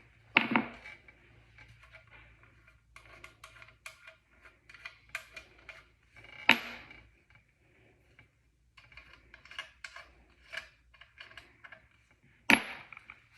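Small clicks and scrapes of a brass trumpet's bottom valve caps being unscrewed and handled. Three louder knocks, each with a brief high metallic ring, come about half a second in, near the middle and near the end.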